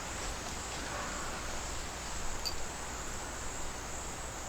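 Steady high-pitched chorus of insects, with one faint tick about halfway through.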